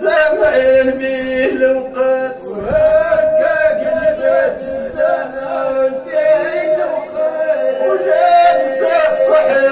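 Men chanting Moroccan Sufi Rasma poetry without instruments: a lead voice winds through ornamented, melismatic lines over a steady held note.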